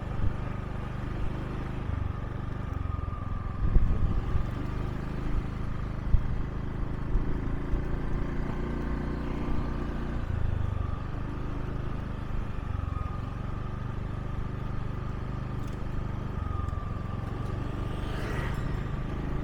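A small motorbike's engine running steadily while riding at low speed, its note shifting slightly now and then with the throttle.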